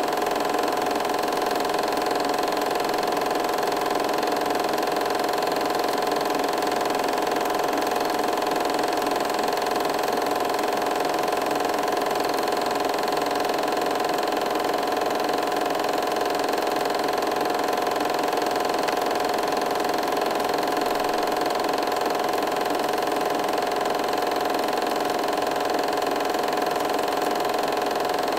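Film projector running at a steady speed: an even mechanical whir with a constant hum that does not change.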